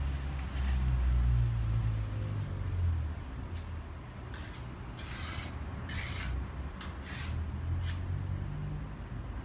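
About half a dozen short, hissing scrapes of a hand tool being rubbed or scraped, starting about four seconds in, over a steady low rumble.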